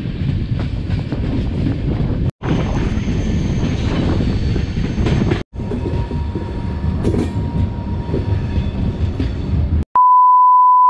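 Moving passenger train, a steady rumble with wheels clicking over the rail joints, broken by two brief cuts. About a second before the end it stops abruptly and a loud steady test-tone beep sounds with the colour-bar test card.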